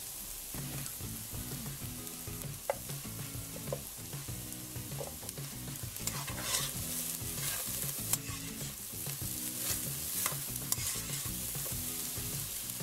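Diced onion, grated carrot, red pepper and sliced calabresa sausage sizzling in hot fat in a pot, with a utensil stirring and scraping through the mixture in the second half.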